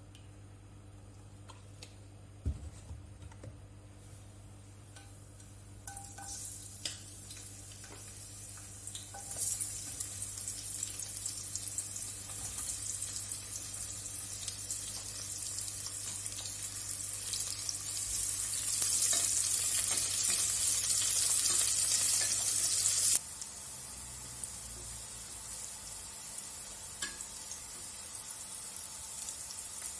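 Food sizzling in hot oil in a pan while it is stirred, with occasional clicks of the utensil. The sizzle starts a few seconds in, grows louder, and drops suddenly about three-quarters of the way through, then carries on more softly.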